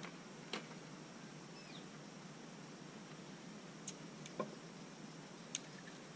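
Dry grass and sticks being handled and pushed into the firebox of a brick camp stove: a few faint, sharp clicks and snaps, one about half a second in and three more in the second half, over a faint steady hiss. A single short falling chirp comes in between.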